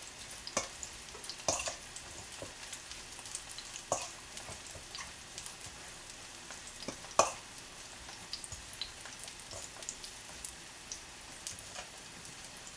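Seasoned chives being tossed by hand in a stainless steel mixing bowl, with a few sharp clinks against the bowl, the loudest about seven seconds in. Under it runs a faint, steady sizzle of chicken breast steaks frying in a pan.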